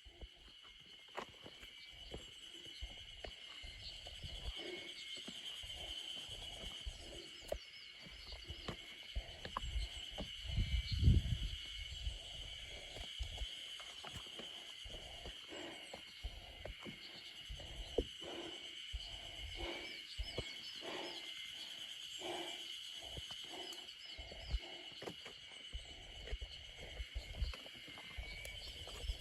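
Footsteps on a mountain trail, about one or two a second, over a steady high-pitched insect chorus with bird chirps. A gust of wind hits the microphone about eleven seconds in.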